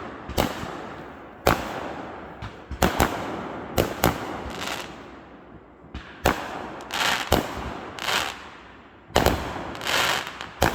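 Fireworks going off: about a dozen sharp bangs at irregular intervals, each echoing away, with a few longer crackling bursts in the second half.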